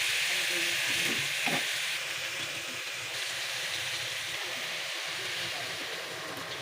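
Food sizzling and frying in a hot pan for tinola: a steady hiss that eases slightly after about two seconds.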